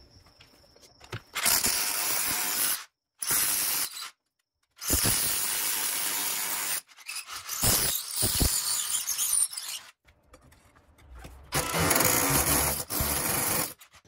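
Power drill running a long drill bit in five bursts of one to two seconds each, boring through the timber head of a door frame. Several bursts cut off suddenly.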